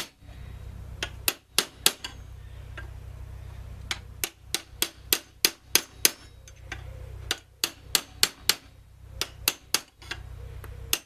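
Small hammer striking metal in bursts of quick light taps, peening over a brass rivet to spread and smooth its head. A low steady hum runs underneath.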